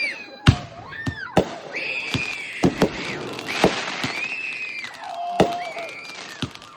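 Consumer fireworks going off: a string of about ten sharp bangs and pops spread over several seconds, with high arcing whistling tones between them.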